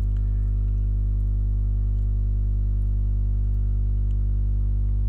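Background music: a steady, sustained low chord or drone held without a break or beat.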